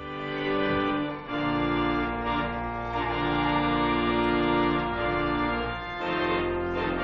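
Organ music: slow held chords, changing about a second in and again near the end.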